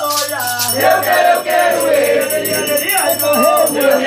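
Voices singing a batuque chant for Oxum together, with a shaken rattle keeping a steady beat.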